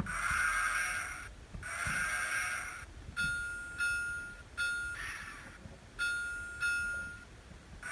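Model steam locomotive's DCC sound decoder playing its chosen steam whistle through a tiny speaker, a series of blasts: two long breathy ones first, then several short, clear, high toots with one more breathy blast in the middle.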